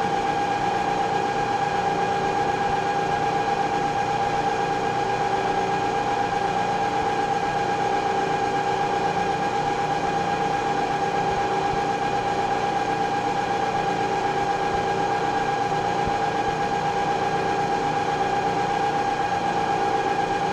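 Moore jig borer's spindle and drive running steadily at about 355 rpm: an even machine hum with one strong, level tone.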